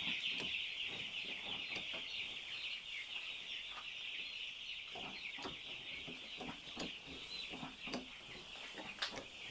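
A flock of broiler chicks peeping continuously, many birds at once, slowly growing fainter, with a few faint clicks. The chicks have been chilled by heavy disinfectant spraying.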